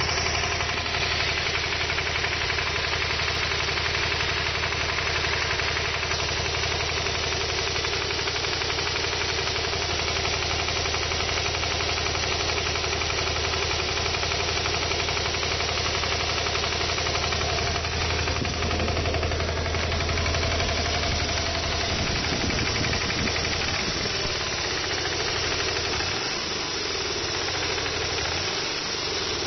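Honda VT250 Spada's V-twin engine running at idle and low revs with an abnormal mechanical noise, which the owner thinks may be tappet noise or a worn crank bearing.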